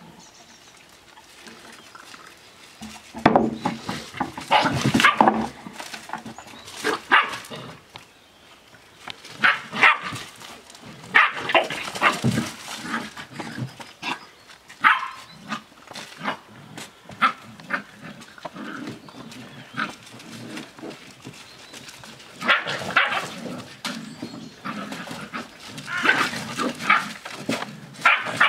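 Seven-week-old Australian Shepherd puppies barking in play. The short barks come in clusters from about three seconds in.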